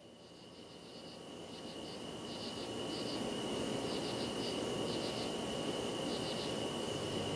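Insects chirping: short pulsed trills repeating every second or so over a steady high whine and a hiss, fading in over the first few seconds.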